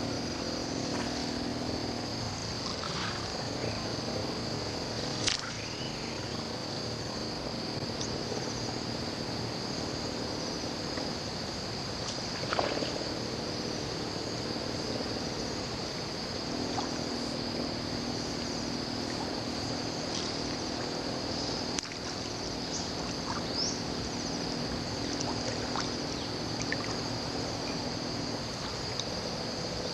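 Steady high-pitched insect chorus. A low steady hum drops out about two seconds in and returns for the second half, and there are a few faint knocks.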